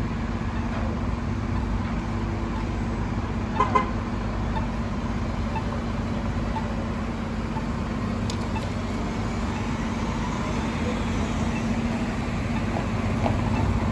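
An engine running steadily with a constant low hum, with two short beeps about four seconds in.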